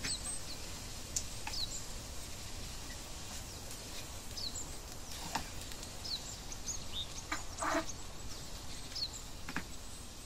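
Wooden spoon stirring rice and vegetables in an oiled frying pan: a faint steady hiss of frying, scattered scrapes of the spoon through the grains and a few knocks against the pan about halfway and near the end. Short high chirps are sprinkled throughout.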